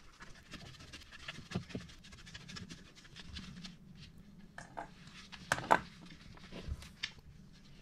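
Hand screwdriver turning small screws into a plastic power-drill casing: faint scraping and handling noise with scattered clicks, the sharpest about two-thirds of the way through.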